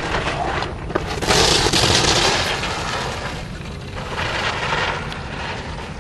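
Ski edges scraping across hard-packed snow in two long swells of hiss as the skier carves giant slalom turns, over a steady low rumble.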